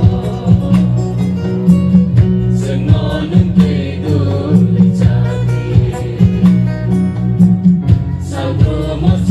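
Music: a song with singing over a heavy, steady bass line and a repeated percussive beat, played for the dance.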